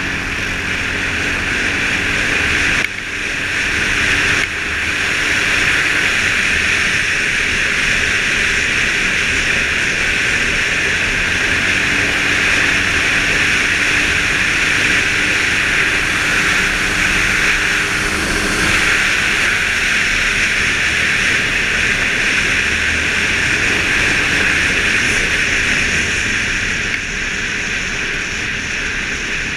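Suzuki KingQuad ATV being ridden at speed along a gravel trail: a steady rush of wind and road noise with the engine's hum running underneath.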